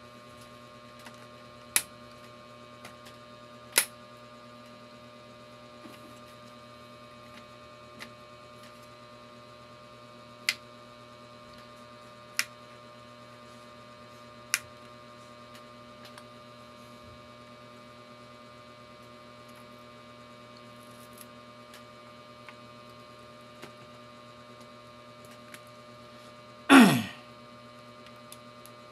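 Sharp plastic clicks every two seconds or so as an HP laptop's bottom cover is pried off its clips, over a steady electrical hum. Near the end comes one much louder creak that falls in pitch.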